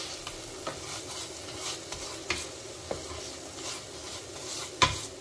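A silicone spatula stirs and mashes softened tomato masala in a frying pan while it sizzles in oil. A handful of short scrapes and knocks of the spatula against the pan come through, the loudest just before the end. The tomatoes have cooked down soft and are being mashed into a thick gravy base.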